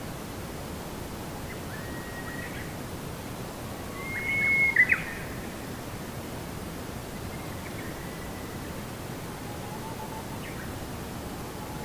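Birds calling intermittently, short chirps and whistles over a steady background hiss of outdoor noise; the loudest calls come about four to five seconds in.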